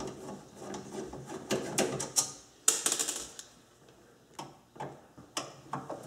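A screwdriver backing screws out of the sheet-metal underside panel of an over-the-range microwave. Scattered sharp metallic clicks and clinks, with a quick rattle of clicks about three seconds in.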